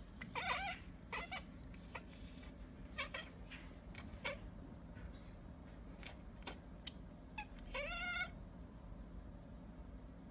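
Domestic cat giving a series of short meows, with a longer meow about eight seconds in that rises in pitch at its start.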